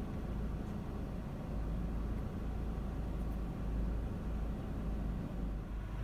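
Steady low rumble with a faint hiss, without distinct strikes or cutting strokes.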